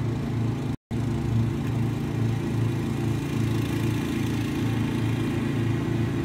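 A neighbour's petrol lawn mower engine running steadily, a low drone that swells and fades slightly. There is a split-second dropout of all sound just under a second in.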